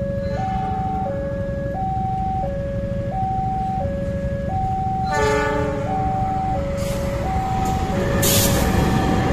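Level-crossing warning alarm sounding a steady two-tone high-low chime, over the low rumble of a KAI CC 206 diesel-electric locomotive approaching and passing with a cement freight train. The locomotive's horn sounds briefly about five seconds in, and a short sharp hiss comes near the end.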